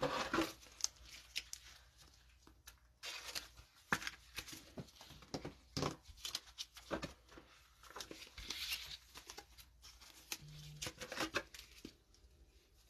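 Trading cards and plastic card holders being handled: a quiet, scattered run of light clicks, slides and crinkly rustles as cards are sorted and set down.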